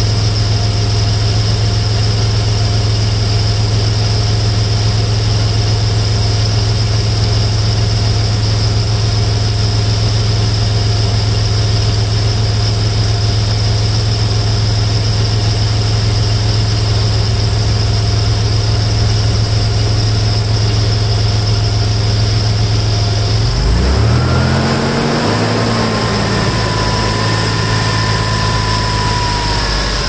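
1992 Toyota 4Runner engine idling steadily. About 24 seconds in, its speed briefly rises and falls, then settles, with a faint whine after.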